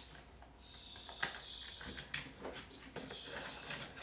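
Small toy cars handled on a plastic play track: a faint hiss with a few sharp plastic clicks.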